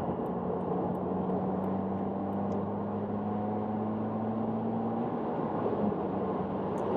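Road and wind noise inside the cabin of a 2018 Subaru WRX speeding up on the highway toward 75 mph, with wind passing over newly fitted roof crossbars. The engine's note rises slowly as the car accelerates, then drops away about five seconds in.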